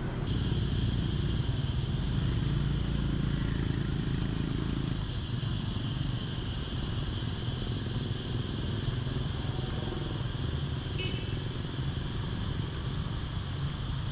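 Motorbike traffic running steadily: a continuous low engine rumble with no clear single event.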